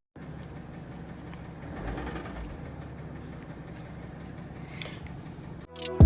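BMW N57D30B straight-six diesel engine running with an internal knock, the kind of knock that can mean serious internal damage. Loud music comes in near the end.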